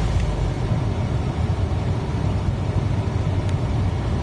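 Holden VY Commodore engine idling steadily at about 750 rpm, with a faint click about three and a half seconds in.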